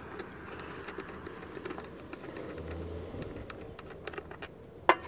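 Faint clicks and handling noises from hands working on a riding mower's engine, which is not running, with one sharp, loud click near the end.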